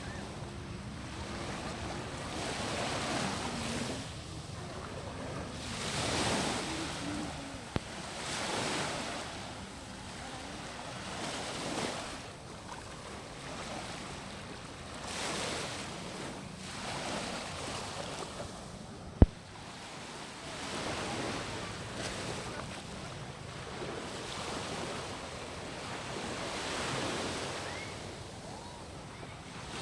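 Strong sea surf breaking and washing up the beach in repeated swells, with some wind on the microphone. A single sharp click about two-thirds of the way through.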